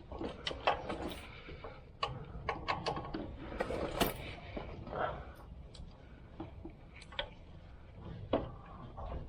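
Hand tools working on a starter motor: irregular metallic clicks and knocks of a ratchet and wrench fastening parts, with a few louder clanks.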